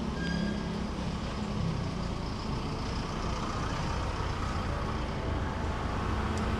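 Street traffic: a large motor vehicle's engine running close by amid a steady traffic hum, with a short high beep just after the start.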